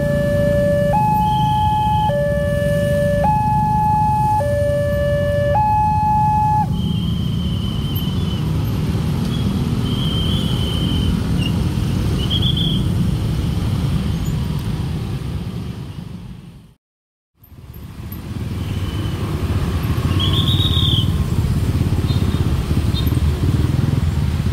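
Wantech level-crossing alarm sounding its two-tone electronic chime, a low and a high tone taking turns about every 1.2 s, over the rumble of motorcycle and car traffic. The alarm stops about seven seconds in, leaving the traffic noise with a few short high chirps, and the sound drops out briefly for under a second about two-thirds of the way through.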